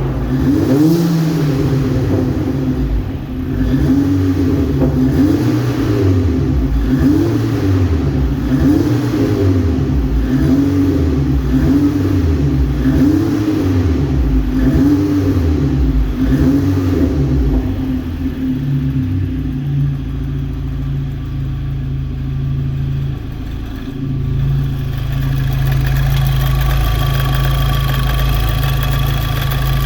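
Car engine running unevenly, its speed rising and falling in a regular cycle about every second and a half, then settling to a steadier run. It is a misfire blamed on a faulty APR ignition coil.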